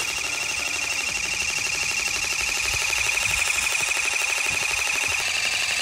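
Electric water gun firing continuously, its pump motor giving a steady high buzz with a rapid, even pulse.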